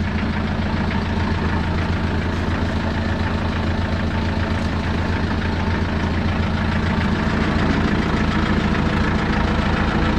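Tractor engine running steadily, turning a PTO-driven concrete mixer through its PTO shaft. It gets slightly louder in the last couple of seconds.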